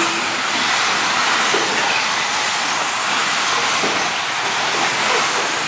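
Several electric 1/10 4wd RC buggies with 13.5-turn brushless motors racing on an indoor dirt track, heard as a steady hissing whir of motors, drivetrains and tyres.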